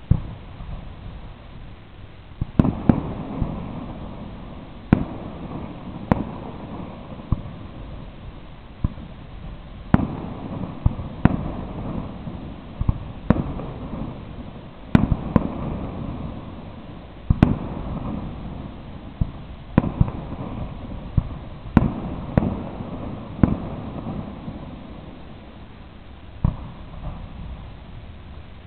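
Aerial fireworks shells bursting one after another at irregular intervals, roughly every second or two. Each sharp bang is followed by a low rolling echo.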